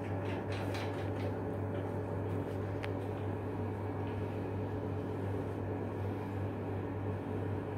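Steady electric-motor hum, with a low drone and a few higher humming tones under it. Several light clicks in the first second or so and one sharp click about three seconds in come from hands and tools on the flanged pipe valve.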